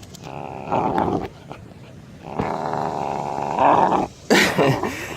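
Labrador–pit bull mix puppy growling as it hangs on by its teeth in a game of tug, in two long stretches, the second the longer. A short, louder burst of noise comes near the end.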